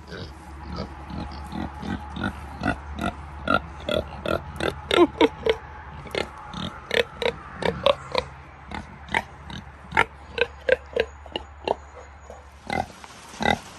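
Kunekune pigs grunting and oinking in short calls, about two or three a second.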